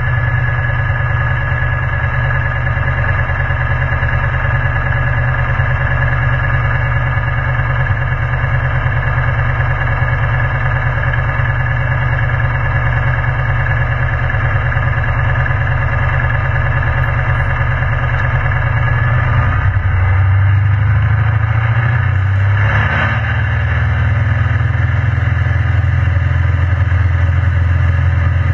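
Piston engine of a small single-engine light aircraft running steadily, heard from inside the cockpit. About two-thirds of the way through the note shifts, briefly rising before settling again, as the throttle is moved.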